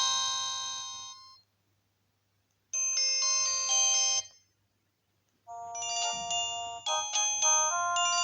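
Nokia 108 mobile phone playing its built-in ringtones and message tones: one electronic melody fades out in the first second or so, a short chime of about a second and a half follows after a pause, and a new melody starts about five and a half seconds in.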